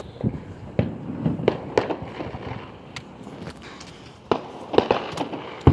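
Fireworks and firecrackers popping and crackling at irregular intervals, with a louder cluster of pops about four to five seconds in.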